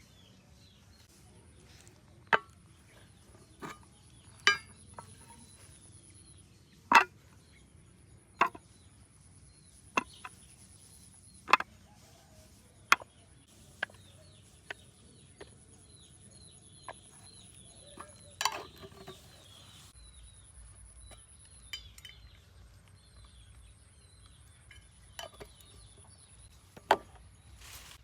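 A series of sharp clicks and knocks at irregular intervals, roughly one every one to two seconds, over faint high chirping.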